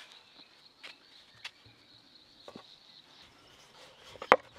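A few soft taps, then one sharp knock about four seconds in as a wooden rolling pin comes down on a floured wooden board to roll out dough. Faint, steady insect chirring runs underneath.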